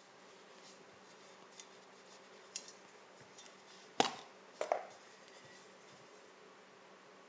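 A few sharp knocks and clicks of hard objects being handled, over a low steady hum. The loudest knock comes about four seconds in, followed half a second later by a quick double knock.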